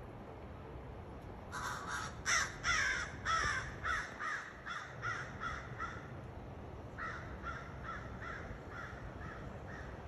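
American crow cawing in a quick run of harsh caws, several a second, loudest near the start and fading, then after a short pause a second, fainter run.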